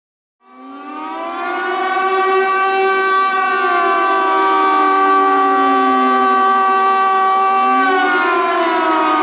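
Tsunami warning siren sounding. It starts about half a second in and swells to full loudness over a couple of seconds. Several tones sound together, some slowly sliding down and back up in pitch.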